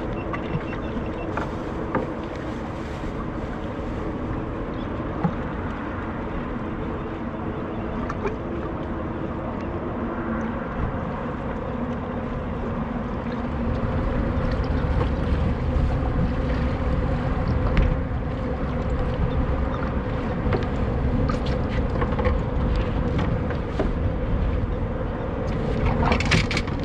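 Wind buffeting the microphone and choppy water against the hull of a small boat, with a steady low hum underneath and a few small knocks of gear. The wind gets louder about halfway through.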